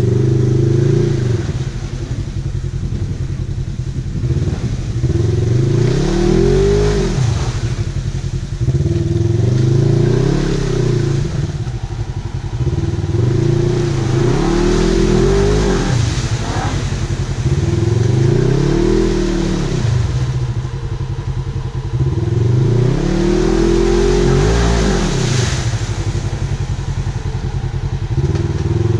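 Polaris RZR side-by-side's engine running under load through deep mud and water, revving up and back down about five times, roughly every four seconds, over a steady drone between revs.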